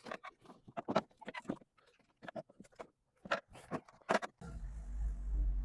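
A string of short, sharp clicks and knocks, as of plastic bumper and trim parts being handled and pushed into place. About four seconds in they stop and a steady low rumble takes over.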